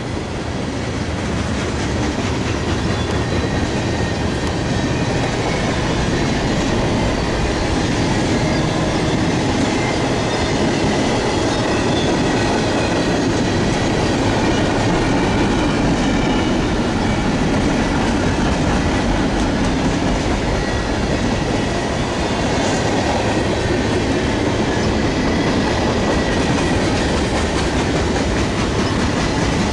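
Freight cars of a Canadian Pacific mixed freight train (tank cars and covered hoppers) rolling past at close range: a loud, steady rumble of steel wheels on the rails with rapid clickety-clack over the rail joints.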